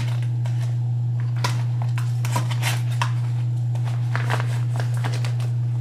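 Rustling and short clicks of wrapped food and containers being handled and packed into a zippered insulated lunch bag, over a steady low hum.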